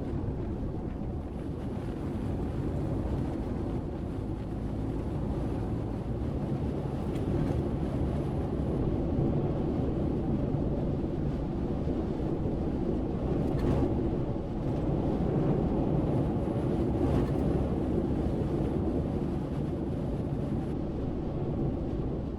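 Vehicle driving on a gravel dirt road: a steady low rumble of tyres and engine, with a few faint ticks.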